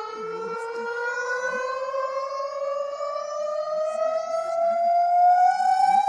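Emergency-alert siren played in reverse, one long tone whose pitch glides slowly and steadily upward and grows slightly louder toward the end.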